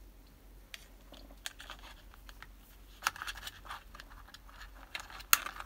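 Light clicks, taps and scraping from hands handling insulated hookup wires against a clear plastic box, with a sharper click about three seconds in and the loudest one near the end.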